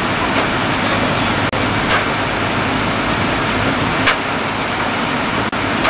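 Steady, dense drone of fire engines running at a fire scene, with a faint low hum under it. Two faint short high chirps come about two and four seconds in, and the sound drops out for an instant twice.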